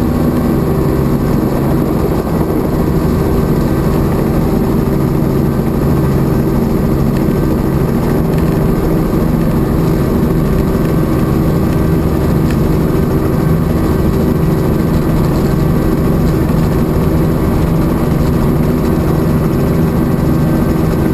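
Helicopter in flight heard from inside the cabin: a loud, steady drone of engine and rotor that does not change.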